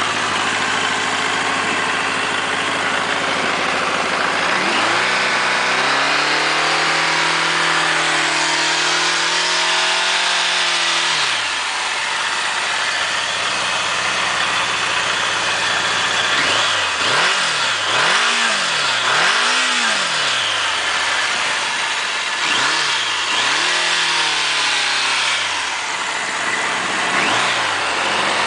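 1989 Kawasaki Voyager XII motorcycle's 1200 cc inline-four engine idling, then revved: one long rev held for several seconds early in the first half, then about half a dozen short throttle blips, each rising and falling back to idle.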